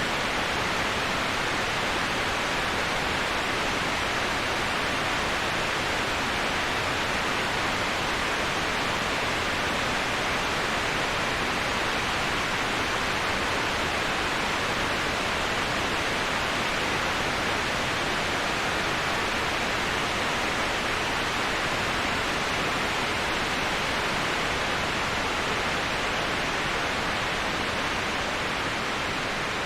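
Waterfall rushing as a steady, even hiss with no breaks or distinct splashes, easing slightly near the end.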